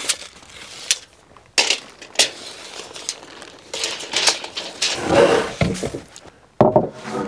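Wooden boards knocking and clattering against each other as planks are shifted in a stacked lumber pile and a long board is dragged out. There are a few sharp knocks, rougher scraping in the middle, and a sudden louder knock and scrape near the end.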